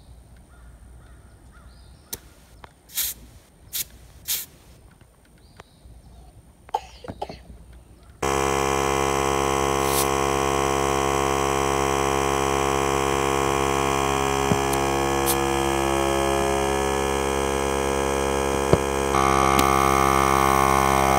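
A small Powermate portable air compressor starts about eight seconds in and runs steadily, pumping air into a homemade air cannon's tank. Near the end it gets louder and its tone rises. A few brief sharp sounds come before it starts.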